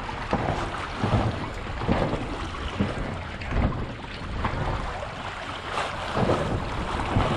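Wind buffeting the microphone and water rushing and slapping against the hull of a sailboat under way in choppy water, with irregular sudden louder bumps every second or so.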